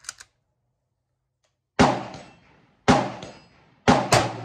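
Rifle shots on a covered firing range: a sharp report about two seconds in, another a second later, then two more only a quarter second apart near the end, each trailing off in a short echo.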